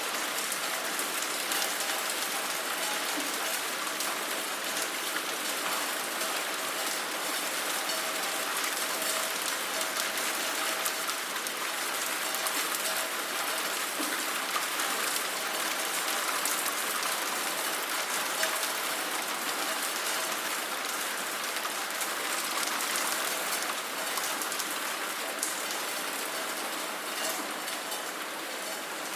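Steady rain falling and pattering on surfaces, a constant hiss with many small drop ticks.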